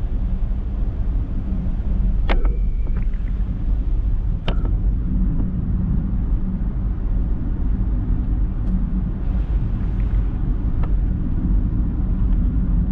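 Steady low rumble of a car driving on a rain-wet road, heard from inside the cabin, with a few brief clicks and ticks scattered through it.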